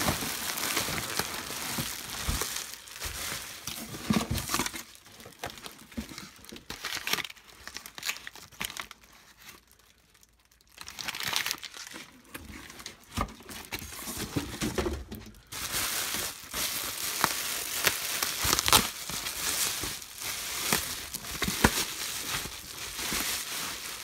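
Foil insulation liner of a shipping box crinkling and crumpling as it is handled and pulled open by hand, with a quieter lull about midway.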